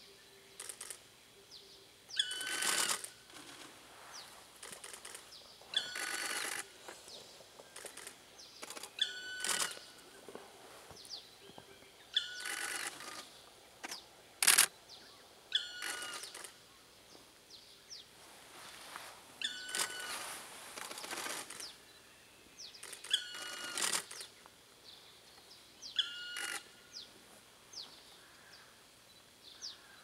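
Black woodpecker (Dryocopus martius) perched on a trunk, repeating its long plaintive call eight times, about every three and a half seconds; each call rises quickly and then holds. A single sharp click about halfway through.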